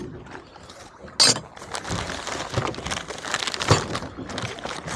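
Plastic bait packaging crinkling and rustling as it is handled. A sharp knock with a brief ringing comes about a second in, and a louder click near the end.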